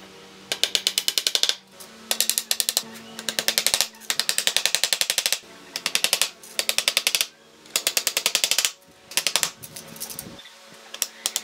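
Claw hammer driving nails into wooden pallet slats: quick runs of about eight blows a second, each run lasting about a second, repeated several times with short pauses between.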